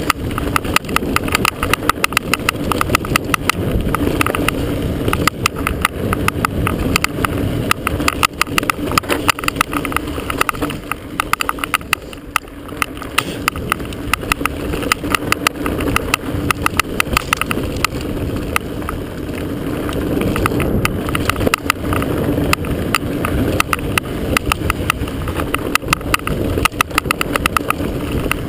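Mountain bike running fast down a dirt single track: a rapid, irregular clatter of the action camera banging on its chest mount over a steady rush of tyres on dirt.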